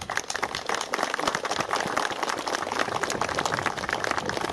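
Audience applauding: many hands clapping in a dense, steady patter that starts just as the speech ends.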